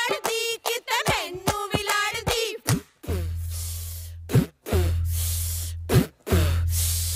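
Punjabi giddha: women singing a folk boli to sharp rhythmic hand claps. About three seconds in the singing stops and a steady, noisy din with a low hum takes over, broken twice by a sharp hit.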